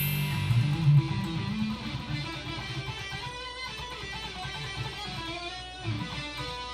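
Intro music led by an electric guitar, with a bass line underneath.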